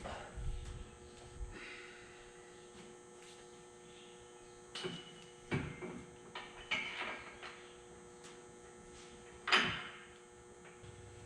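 A steady electrical hum, with a few scattered knocks and clatters of something being handled; the loudest knock comes near the end.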